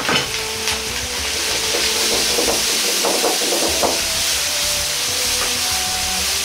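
Ground beef, chopped onion and ginger sizzling steadily in a hot wok while being stirred, with a few sharp clicks and a run of scraping clicks against the pan about halfway through.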